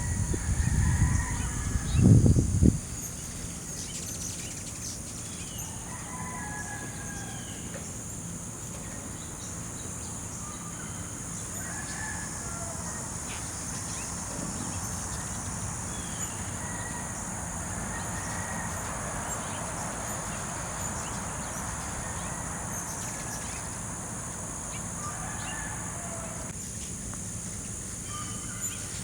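Outdoor ambience: a steady high drone of insects, with scattered short bird chirps. A loud low rumble fills the first two or three seconds, then cuts off.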